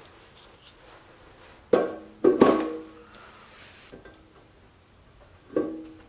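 Aluminium cylinder head being set down onto a Ford Coyote 5.0 V8 block: sharp metal clunks, each with a brief ringing tone. Three come close together about two seconds in and one more near the end.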